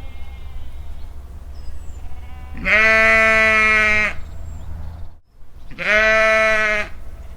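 Bleating farm animal: two long, loud bleats, one about two and a half seconds in and another near the end, with fainter bleats from other animals in the background.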